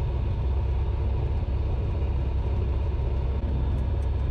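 FK9 Mark IV ultralight aircraft's piston engine and propeller running steadily at low taxi power, a low even rumble.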